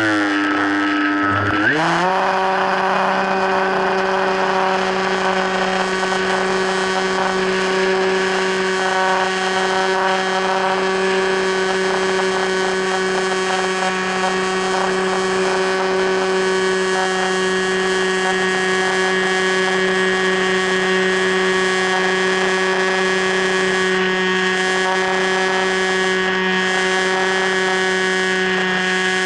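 Electric motor and propeller of an FPV Raptor model plane running, a steady buzzing drone with a brief dip and rise in pitch near the start.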